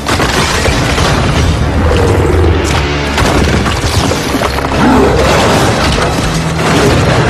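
Film soundtrack of a creature attack: a sudden loud crash at the start, then booms and smashing impacts over music.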